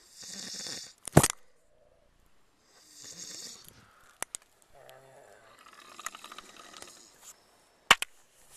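Several people snoring: rasping breaths, one after another. Two loud sharp clicks come about a second in and near the end.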